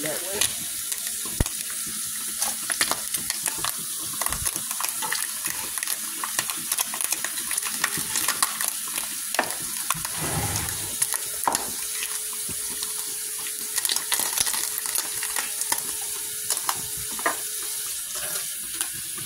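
Turkey bacon frying in hot grease in a skillet: a steady sizzle full of small crackles and pops.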